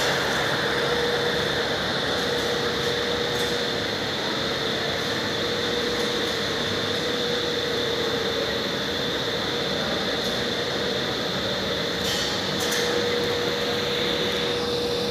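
Steady machine drone with a constant high whine over a lower hum, and a couple of light clicks about twelve seconds in.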